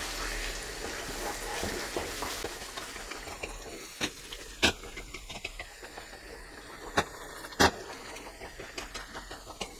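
Butter chicken curry being stirred in a pan as cream is mixed in, with a soft sizzle that fades, and the spoon knocking sharply against the pan four times in two pairs.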